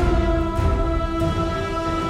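Outro music: held orchestral-style chords that change every half second or so, over a steady low rumble.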